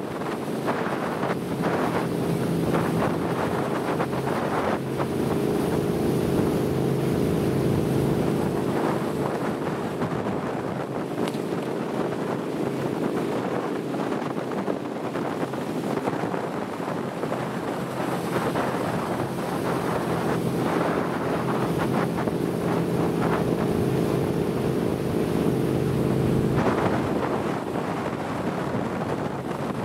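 Chase boat's motorboat engine running steadily at speed, a continuous low drone, with wind buffeting the microphone and water rushing past the hull.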